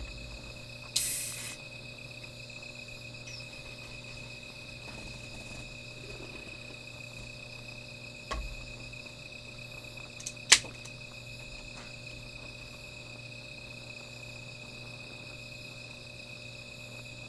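Crickets trilling steadily on one high pitch. A short hiss comes about a second in, a dull knock at about eight seconds, and a sharp click at about ten and a half seconds, the loudest sound.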